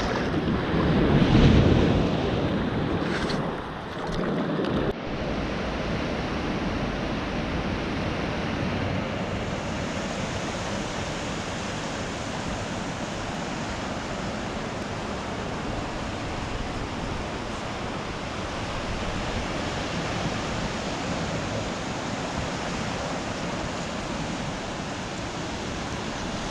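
Barents Sea surf washing steadily on the shore, with wind buffeting the microphone in the first few seconds.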